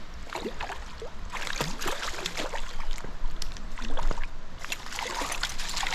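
Water splashing and sloshing in a stream, with many short, irregular splashes: a hooked brook trout thrashing at the surface as it is played in.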